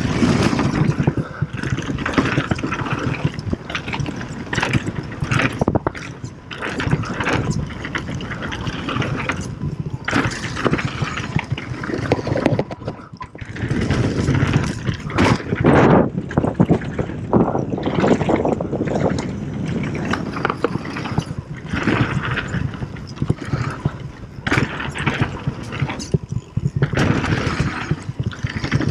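Mountain bike descending a dirt trail at speed: tyres rolling over hardpack and loose gravel, with the bike rattling and knocking over bumps and wind rushing over the camera's microphone. The noise rises and falls constantly with the terrain.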